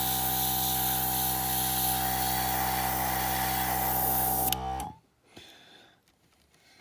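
Airbrush compressor motor running steadily with the hiss of air and paint spraying from a Master Airbrush G22. About five seconds in, the hum and hiss stop abruptly, the motor's pitch dropping as it winds down.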